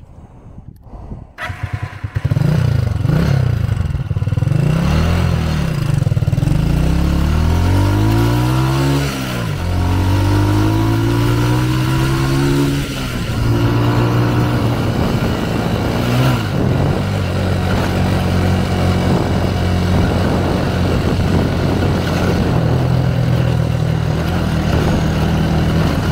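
Motorcycle engine starting off and being ridden: its pitch climbs and drops several times as it speeds up and changes gear, then it runs at a steadier speed.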